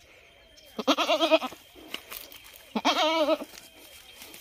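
Young male goat bleating twice, about two seconds apart, each call under a second long with a quavering, wavering pitch.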